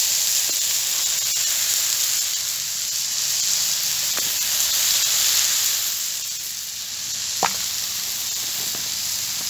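Mushrooms, onions and rice sizzling steadily in a frying pan over a campfire, with a few light ticks, the clearest about seven seconds in.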